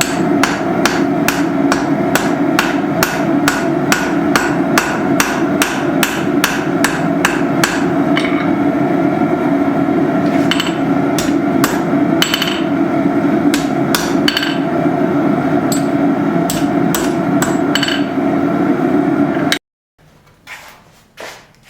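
Blacksmith's hammer striking hot steel on the anvil while forging a tong half: about two blows a second for the first eight seconds, then sparser, irregular blows, over a steady drone. The sound cuts off abruptly a couple of seconds before the end.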